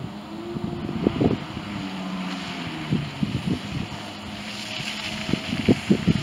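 Jet ski engine running out on the water, its drone shifting in pitch as it speeds and turns. Wind buffets the microphone with low thumps throughout.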